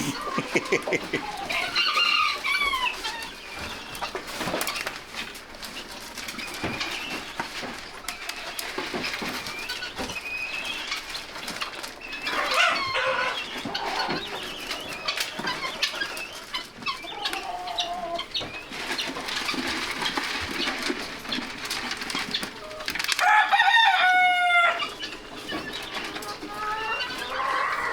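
Barn poultry calling: repeated short clucks and calls from chickens and other fowl, with one loud, drawn-out crowing call about three-quarters of the way through.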